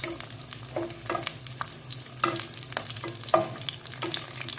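Whole green chillies frying in hot oil in a nonstick pan, crackling and spitting, while a spatula stirs and turns them. The loudest pop comes a little past the three-second mark.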